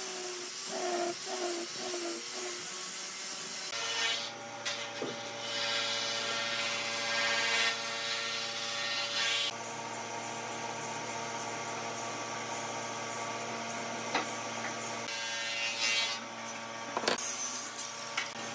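Power tool working wood: a steady motor hum with a rasping noise that gets louder about four seconds in.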